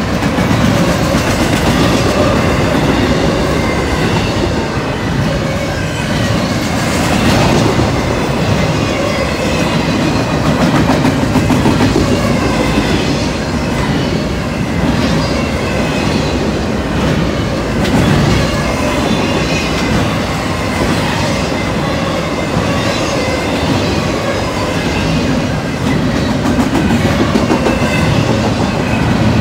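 Norfolk Southern double-stack intermodal freight train rolling past at close range: a steady, loud rumble of container cars running on the rails.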